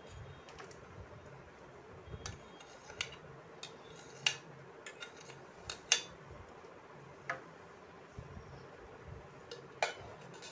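Light, scattered clinks and taps of kitchen vessels and utensils being handled: a dozen or so sharp, irregular ticks, loudest about four and six seconds in.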